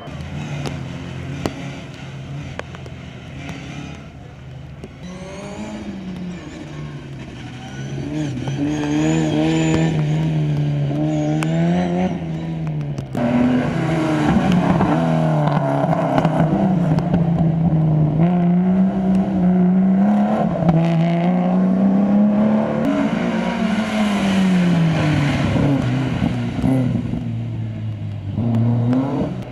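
Classic rally car engines running hard. They are fainter at first; from about eight seconds in one is loud and close, its revs climbing and dropping over and over as it accelerates, shifts and slows, until it fades near the end.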